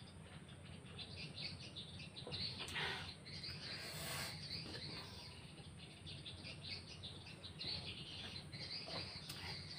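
Faint, irregular chirping of small birds, over a low steady hum.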